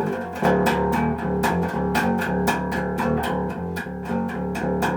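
Music with guitar and bass over a steady beat.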